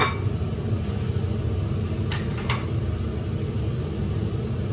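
Steady low hum of a kitchen cooker-hood extractor fan running, with two faint clinks about two seconds in, like a serving spoon knocking against a pot.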